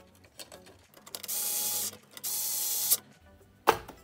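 Small cordless electric screwdriver running in two short whirring bursts, each under a second, while screws are taken out of the amplifier's chassis. A single sharp knock follows near the end.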